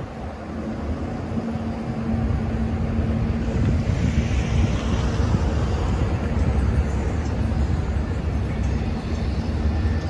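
Diesel locomotive of an approaching freight train: a low engine rumble that grows louder over the first few seconds, then holds. About a second in, a steady low hum joins it for a few seconds.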